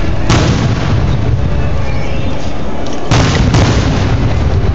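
Aerial fireworks shells bursting: three loud booms, one just after the start and two in quick succession about three seconds in, with a low rumble between them.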